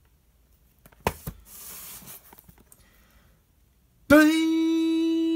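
A trading-card blaster box being handled: a sharp knock about a second in, a second knock just after, then a second or so of rustling and small clicks. About four seconds in, a voice starts one long, steady held note, louder than the handling.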